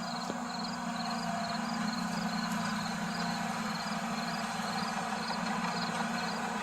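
Heavy earthmoving equipment, a skid steer or track loader, with its engine running steadily in a low, even drone. A faint high chirping repeats regularly, about two or three times a second.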